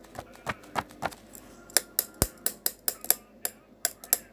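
A run of sharp taps and clicks, a few at first and then about three or four a second from near the middle on, with one low thump a little past halfway.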